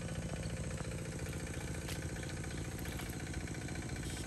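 A water pump's small engine running steadily at an even idle-like speed.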